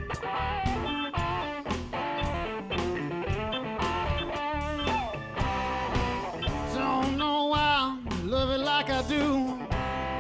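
Live band playing an instrumental passage: a steady drum-kit beat, electric bass, and a lead melody with pitch bends and vibrato.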